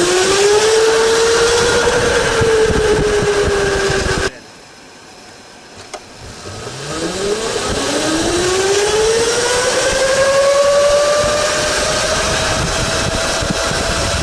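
Italian-made electric go-kart motor whining as the kart accelerates, its pitch climbing and then easing off, over tyre and track noise. About four seconds in the sound drops off abruptly. After a quieter couple of seconds a second run starts, its whine rising steadily to a higher pitch and holding there.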